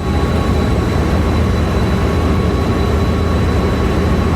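Diesel locomotive engine running, a loud steady rumble with a thin high whine over it.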